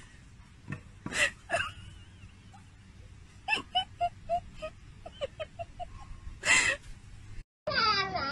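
Short breathy huffs and runs of quick, soft, high little notes, with one louder breathy burst about six and a half seconds in. Then, after a brief cut, a husky puppy starts howling near the end, its pitch wavering.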